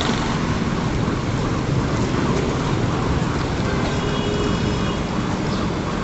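Steady busy-street noise of traffic and people in a continuous wash, with a strong low rumble.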